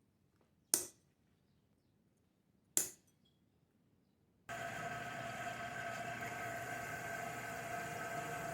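Two sharp taps about two seconds apart, then an electric drill's motor starts suddenly about halfway through and runs steadily with a whine.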